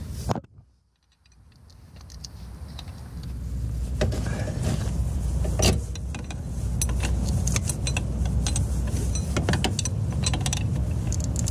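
Steel pry bar levering a Renault Clio 182's alternator to slacken and remove the auxiliary drive belt: scattered metallic clicks and clinks over a steady low rumble, with a brief gap of near silence about half a second in.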